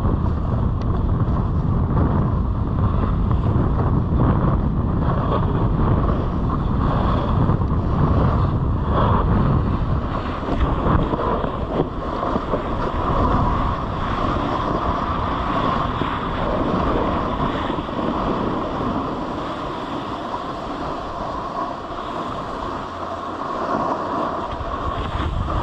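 Wind rushing over the microphone of a camera riding down a ski slope, together with the steady scrape of a snowboard sliding over firm, chopped-up snow. The low wind rumble is heaviest in the first half and eases later.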